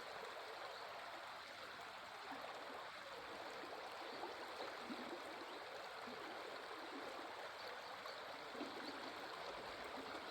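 Running water flowing steadily, with a faint, even rushing.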